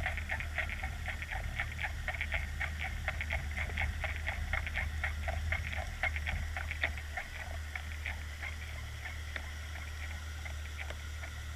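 Underwater sound beside a trolled fishing lure: rapid, irregular clicking over a low steady hum, the clicking thinning out after about seven seconds.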